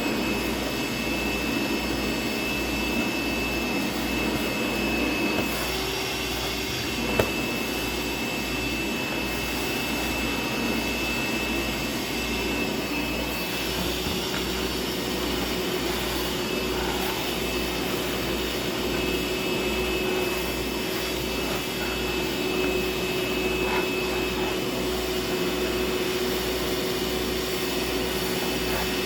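DeWalt DCV581H cordless wet-dry vacuum running steadily on battery power, a constant rush of air with a high steady whine, while picking up water through its wet attachment.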